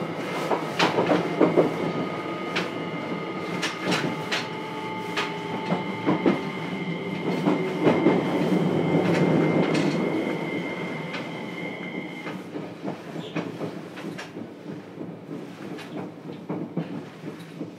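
Running sound inside a motor car of a JR Kyushu 303 series electric train: the Hitachi IGBT inverter whines in several steady tones over the rumble of the wheels, with sharp clicks as the wheels cross rail joints. About twelve seconds in the inverter tones cut off and the running noise fades.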